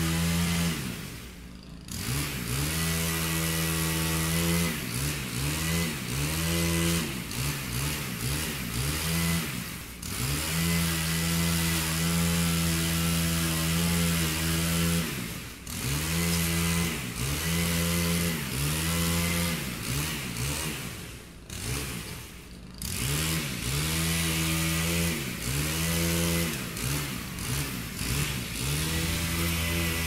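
Chainsaw revving up and down in quick repeated throttle blips, between stretches held at steady high speed for several seconds, with brief drops toward idle.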